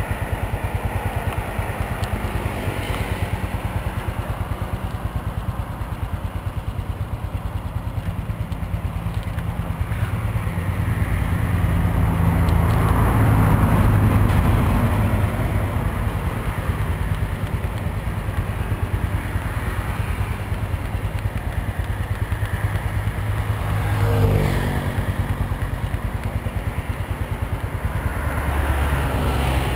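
Motorcycle engines running close by, with a steady low engine hum throughout. One grows louder about halfway through, and another drops in pitch as it passes about four-fifths of the way in.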